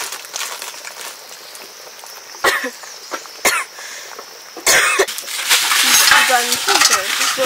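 A person coughing a few times, short sharp coughs about a second apart, then talking.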